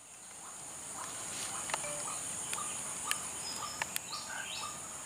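Steady high-pitched drone of insects (crickets or cicadas) in tropical undergrowth, fading in over the first second, with scattered short chirps and a few sharp ticks on top.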